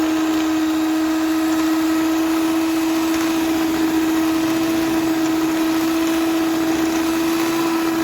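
Electric mixer running at one steady speed with a constant motor whine, beating pasta flora dough as flour is worked in.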